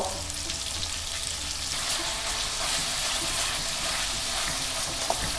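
Cubes of pork sizzling as they fry in melted lard in a saucepan, stirred with a wooden spoon.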